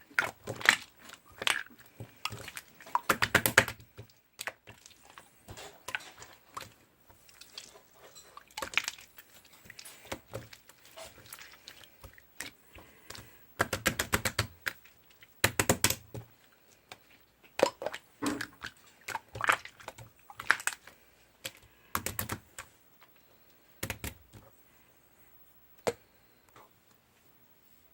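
Slime being squeezed and kneaded by hand, giving off clusters of crackly clicks and pops as small air pockets burst, in irregular bursts with short pauses. It thins out to the odd click near the end.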